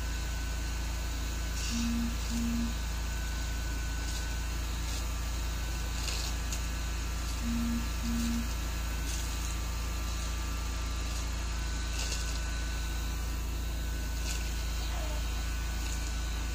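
Sulcata tortoise biting and chewing romaine lettuce: faint crisp crunches every second or two over a steady low hum. Twice, about two seconds in and again about seven and a half seconds in, a short low double tone sounds.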